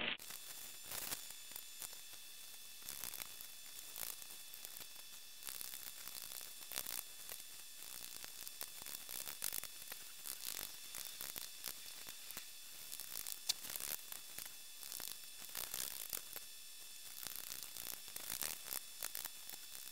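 Fine 120/220 tumbling grit poured from plastic packets onto the stones in a rubber-lined tumbler barrel: a faint, steady hiss with many small scattered crackles and crinkles of the plastic packets.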